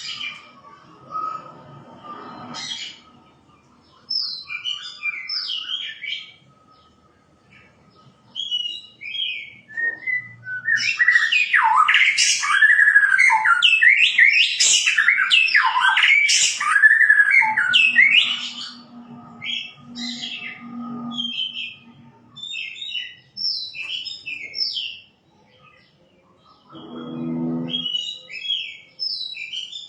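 Shama songbirds singing: short whistled phrases come and go, then swell into a loud, fast run of varied notes for several seconds in the middle before dropping back to brief phrases.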